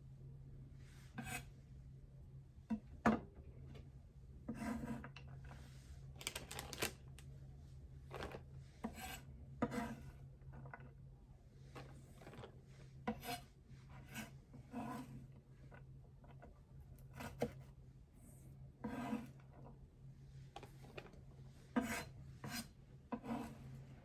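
Knife cutting celery on a cutting board in slow, irregular strokes, about one a second. Each stroke is a short rasp, some with a dull knock.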